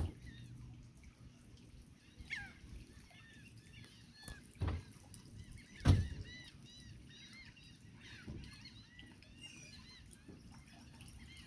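A flock of birds calling over and over, many short arching calls overlapping, broken by a few dull thumps, the loudest about six seconds in.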